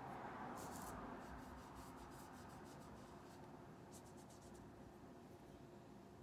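Faint scratchy strokes of a paintbrush on watercolor paper, in two short clusters, over a low steady room hum.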